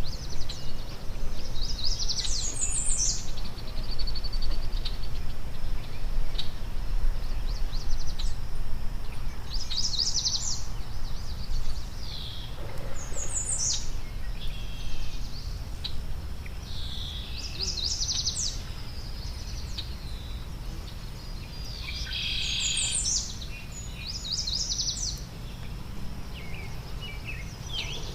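Songbirds singing: short, quick, high-pitched phrases repeated every few seconds, about six in all, over a steady low outdoor rumble.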